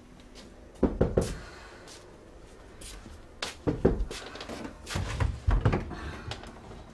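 Knocking at a door: two sharp knocks about a second in, then more knocks, clicks and thumps as the door is unlocked and opened.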